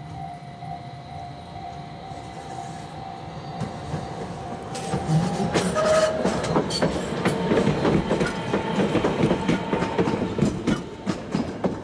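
Low-floor light-rail tram passing close by: a steady whine at first, then about five seconds in the wheels clatter loudly over rail joints and points as it goes past, easing near the end.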